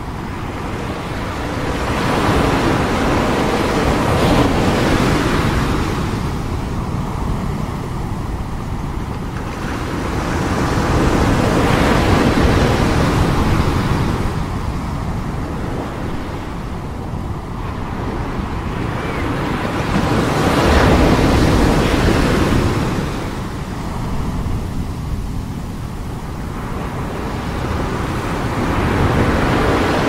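Ocean surf breaking and washing toward the shore, the rush of water swelling and fading in slow surges about every eight to nine seconds.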